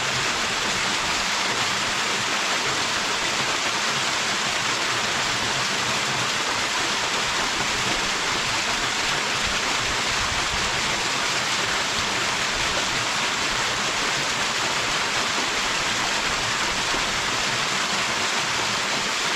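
Waterfall pouring steadily: an even, unbroken rush of falling water with a bright hiss and no change in level.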